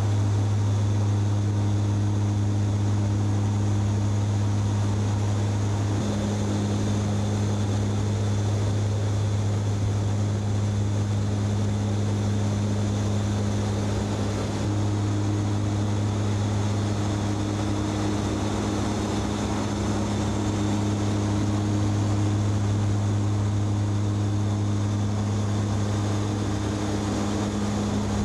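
Propeller airliner's engines running steadily in cruise flight, heard inside the cockpit: a constant low drone with a steady hum and overtones.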